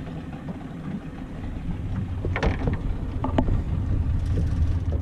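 Fishing boat's engine running with a steady low rumble, with a few short clicks and knocks about halfway through.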